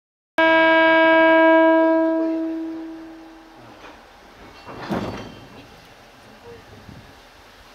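A train horn sounds one long steady note and then fades away over a couple of seconds, followed by a single metallic clank about five seconds in, as the Abt locomotive is coupled to the train.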